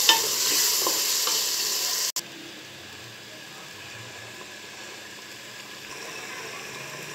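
Taro root pieces frying in spiced masala in a pot, sizzling while being stirred with a wooden spoon. About two seconds in, the sizzle cuts off abruptly to a much quieter, steady hiss.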